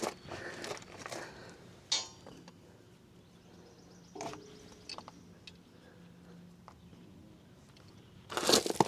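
Small metal clicks and clinks as a safety pin is fitted to a tractor PTO shaft, with a sharp click about two seconds in and a short ringing clink about four seconds in. A loud rustling starts near the end.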